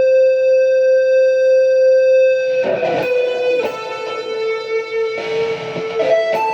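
Electric guitar fitted with DiMarzio Dreamcatcher and Rainmaker pickups, played through an amp: one long sustained note held for about two and a half seconds, then a run of picked single notes.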